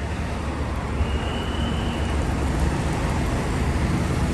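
Heavy Tata goods truck's diesel engine running as the truck rolls toward the listener, growing slowly louder as it approaches.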